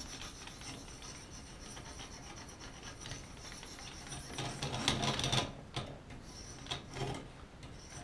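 Hand-held sharpening stones rubbing against the steel of a Gerber multi-tool knife blade, the corner of the stone worked into the serrations: a steady scraping that turns into louder separate strokes about halfway through.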